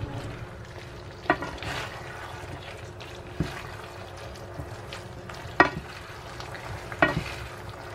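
Pasta in a creamy sauce being stirred and tossed in a non-stick frying pan with a wooden spatula and wooden spoon: a steady low sizzle of the simmering sauce, with a few sharp knocks of the wooden utensils against the pan.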